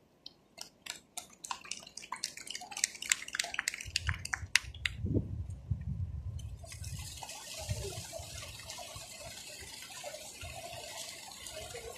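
Musical fountain water: sharp scattered drips and spatters for the first few seconds, then, about seven seconds in, a steady hiss as the jets spray and splash back into the basin.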